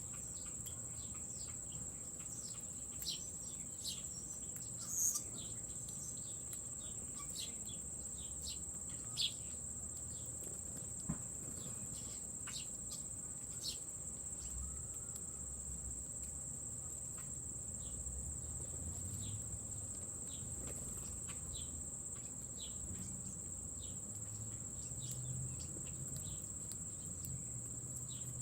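Crickets giving a steady, unbroken high-pitched trill, with a few short, sharp high chirps scattered over it.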